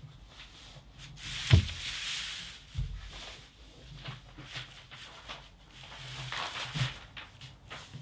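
A large sheet of brown kraft paper rustling and shifting under hands and knees, with a couple of soft thumps and a few light taps.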